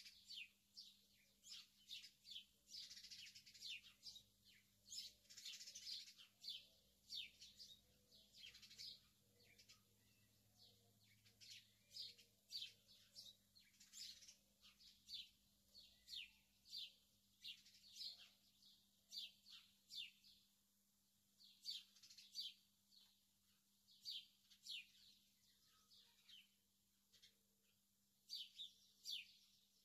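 Faint birdsong: small birds chirping in quick runs of short, falling notes, with brief pauses between runs.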